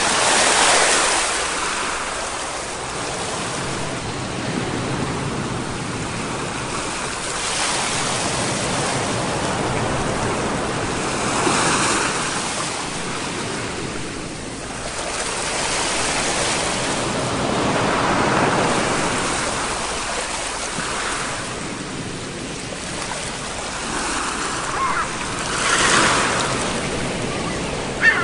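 Ocean waves breaking and washing on the shore, the surf swelling and falling back every few seconds.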